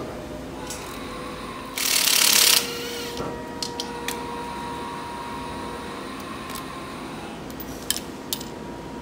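Workshop tool noise during a dirt-bike teardown: a short, loud hiss lasting under a second about two seconds in, then a few scattered sharp clicks of tools and metal parts, over a faint steady hum.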